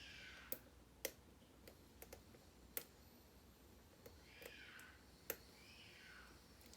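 Faint, scattered clicks from a pick and tension tool working the pins of a Sargent pin-tumbler lock cylinder, with four sharper clicks among softer ticks.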